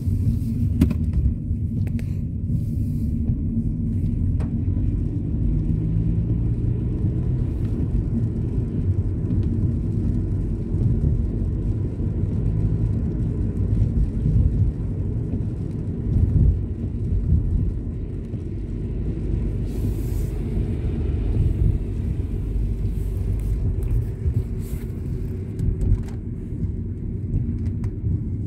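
Steady low rumble of a car's road and engine noise heard inside the cabin, with a few faint ticks now and then.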